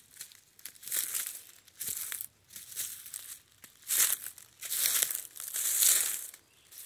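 Footsteps crunching through dry fallen leaves on the forest floor, one crunch roughly every second, louder in the second half.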